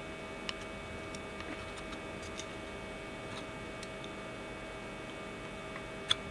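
Quiet workbench room tone: a steady hum with faint, light ticks about once a second.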